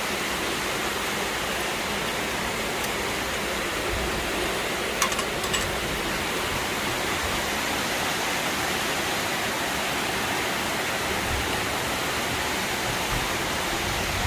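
Steady, even hiss of background noise with no pitch to it, with a couple of short clicks about five seconds in.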